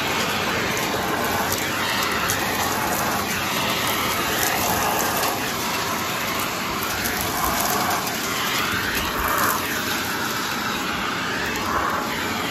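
Vacuum cleaner running through a hose and crevice tool, sucking small debris off carpeted stairs. A steady rush of air wavers in pitch as the nozzle moves over the carpet, with crackling as bits are pulled up the hose.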